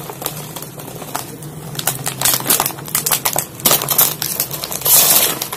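Plastic snack packet crinkling and crackling as it is handled and opened, with the loudest rustle near the end.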